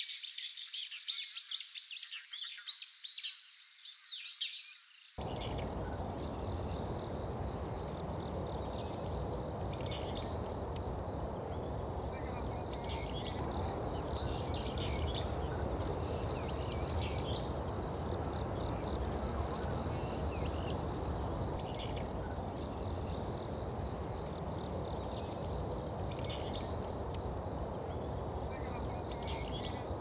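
Common kingfisher giving a rapid series of high, sharp piping calls for the first few seconds, as it flies off after a dive. After that there is a steady low background noise with faint small-bird chirps, and three short, sharp high calls near the end.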